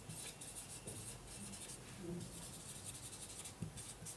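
Handwriting: a run of short, scratchy pen strokes on a writing surface, fairly faint.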